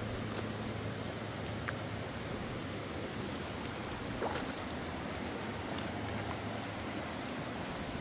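Shallow stream running over rocks, a steady even rush of water, with a few light clicks, one a little louder about four seconds in.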